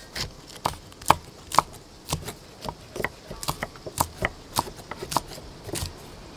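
Kitchen knife slicing red chillies on a thick round wooden chopping block: a quick, uneven series of sharp taps of the blade striking the wood, about two to three a second.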